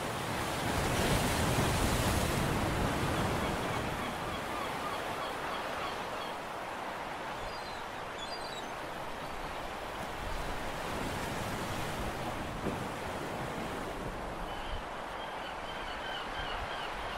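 Sea water washing against the shore with wind on the microphone: a steady rushing that swells louder a second or two in.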